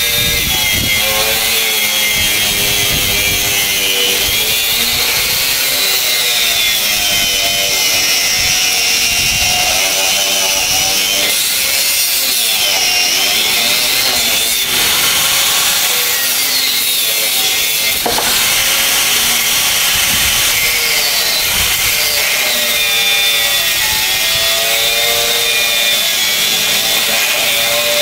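A 4-inch HL Premier DG 850 angle grinder cutting through a 25 mm steel bar: a continuous loud grinding screech, its whine wavering up and down in pitch as the disc bites under load.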